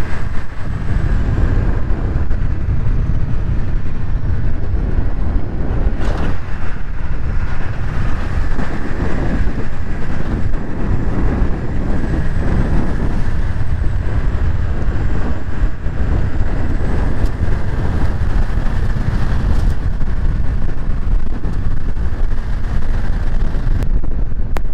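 A tow truck driving on a gravel forest road while towing two Suburbans. Wind buffets the outside microphone, which gives a steady low rumble over the engine and tyre noise.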